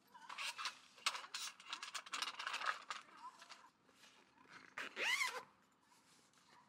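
Fabric rustling and a zipper being worked as a black bag is packed and closed, quick scraping strokes for the first three seconds or so. About five seconds in comes one short pitched call that slides in pitch.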